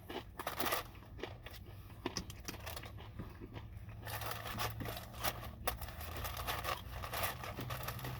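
Close-up crunching and crackling of a breaded chicken finger being bitten and chewed, with paper food packaging crinkling, over a steady low hum. The crunching is busiest in the second half.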